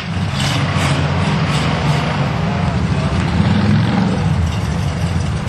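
Steady low rumble of a motor vehicle engine running, with a few brief sharp knocks in the first two seconds.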